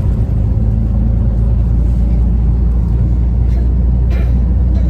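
Motor vehicle engine running, a steady low rumble.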